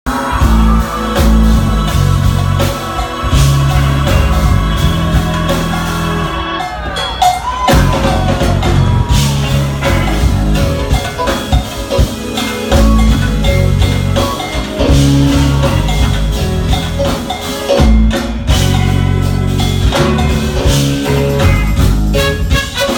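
Live jazz-fusion band playing: a horn section of saxophone and trumpets over keyboards, drums and bass, with a heavy low end.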